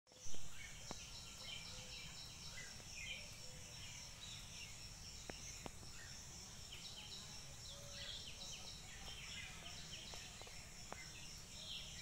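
Many birds chirping in the trees: short, quick chirps that fall in pitch, repeating all through, over a steady high insect drone and a low rumble. A brief knock at the very start is the loudest sound.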